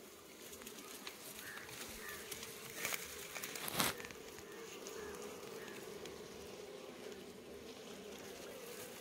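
Wild honey bees buzzing in a steady hum around their nest as it is disturbed by hand, with two short sharp rustles about three to four seconds in.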